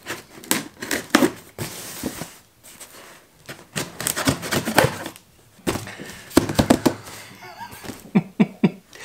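A knife slitting packing tape on a cardboard shipping box: repeated scraping rasps, tape tearing and knocks against the cardboard. A man's brief laugh near the end.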